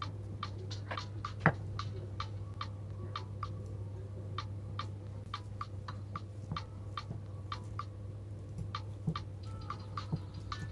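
Light sharp taps in a quick, fairly even series, about three a second, with one louder knock about one and a half seconds in, over a steady low hum.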